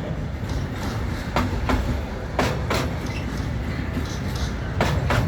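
Freight train starting off slowly, its wheels going over rail joints in paired clacks every second or so above a steady low rumble.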